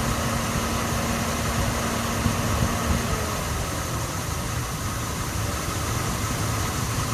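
2006 Dodge Ram engine idling steadily on its first run after a timing chain replacement, having sat unused for a month or more. A thin steady whine drops out about three seconds in.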